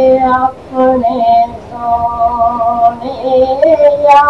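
A man singing a Punjabi verse in a high voice, holding long notes that waver in pitch, with short breaks between phrases.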